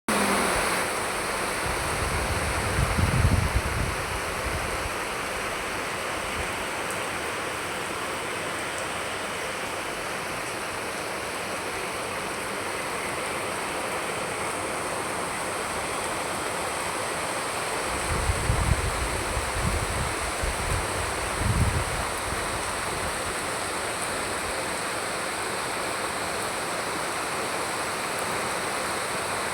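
Steady heavy rain, a dense even hiss, with two short spells of low rumbling: one a few seconds in and another a little past the middle.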